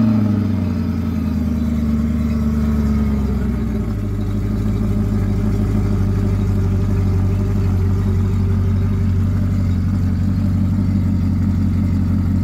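Yamaha 350 hp four-stroke V8 outboard just after starting, run out of the water on a garden hose. Its fast idle eases down over the first few seconds and settles into a steady idle about four seconds in.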